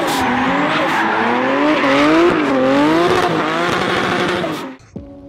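Toyota Supra MkIV's 2JZ-GTE inline-six engine revving hard, its pitch climbing and dropping five or six times in quick succession. The sound cuts off suddenly near the end.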